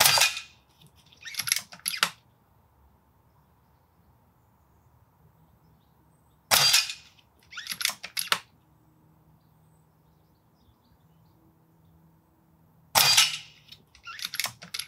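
Daystate Huntsman Revere pre-charged air rifle firing three shots about six and a half seconds apart, each a sharp crack. About a second and a half after each shot come two quieter clicks, the side lever being cycled back and forward to load the next pellet.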